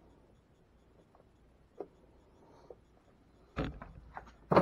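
Faint small clicks of hand tools working wires in an electrical box, then a few sharp knocks and clatters about three and a half seconds in, the loudest near the end, as tools are handled.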